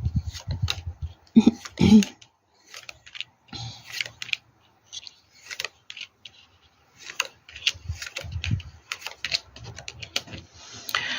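Playing cards being handled on a table: an irregular run of light clicks, flicks and soft taps as cards are drawn from the deck and laid down, with a short rustling slide near the end.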